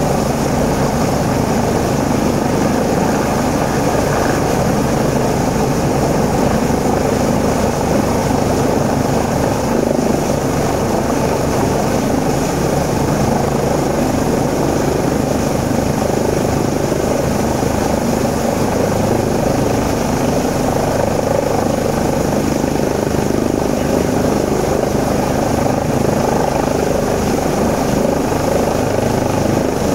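Rescue helicopter hovering low overhead: steady, loud rotor and engine noise with the fast, even chop of the main rotor blades.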